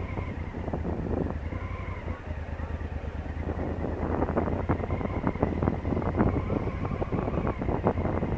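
Honda Africa Twin CRF1000L's parallel-twin engine running at low revs as the bike rolls slowly, a steady low hum, with frequent crackles of wind on the microphone.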